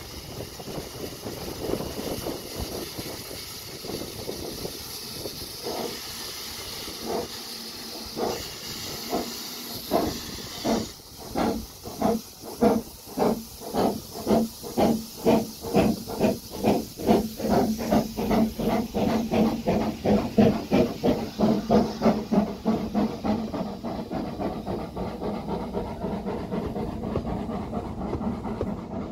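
Double Fairlie steam locomotive No. 12 David Lloyd George of the Ffestiniog Railway starting its train: steam hisses around the cylinders, with a few slow exhaust beats. About ten seconds in, the exhaust chuffs become strong and regular and quicken to about three or four a second as it pulls away. Near the end they merge into a steady rumble as the carriages roll past.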